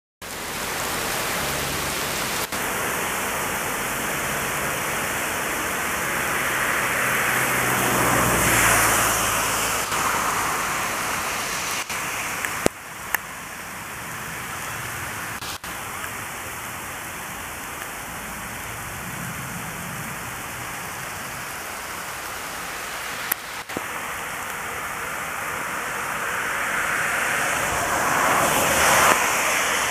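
Steady rain shower falling, an even hiss of rain on surfaces, swelling louder about a quarter of the way in and again near the end. A few brief clicks break in along the way.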